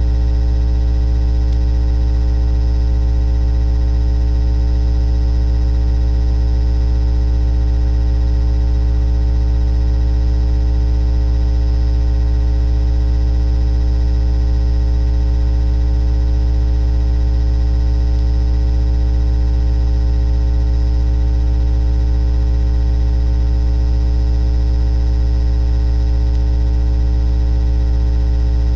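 Loud, steady electrical hum and buzz that never changes, deepest at the bottom with many fainter overtones, like mains interference picked up by the microphone.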